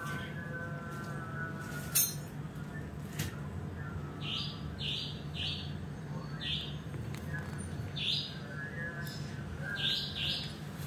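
Birds chirping in short, irregular calls over a steady low hum, with a couple of sharp clicks early on.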